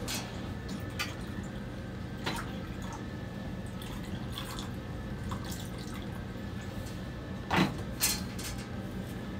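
Water being poured from a glass measuring cup into small plastic cups, trickling and dripping with a few light clinks, over a steady low hum that fits the dye station's fume-hood fan. One louder knock comes about seven and a half seconds in.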